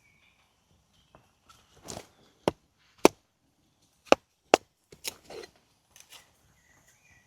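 Firewood being chopped: a series of sharp wooden knocks at irregular spacing. The four loudest come between about two and a half and four and a half seconds in.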